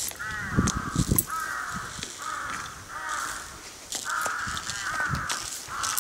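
An animal calling over and over, short calls with a bending pitch coming about every half second, with a few low knocks in the first second.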